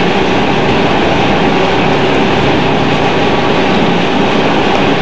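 A riverboat under way: a steady, loud rushing noise with a low hum underneath, from the boat's engines and its movement through the water, heard from the open deck.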